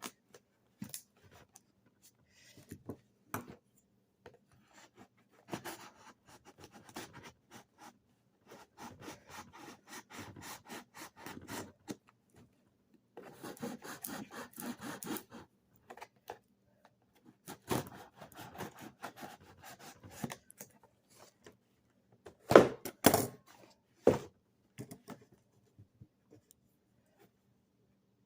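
Packing tape being cut and scraped off a thin cardboard box, in stretches of quick scratchy strokes, with a few sharp knocks of the box near the end.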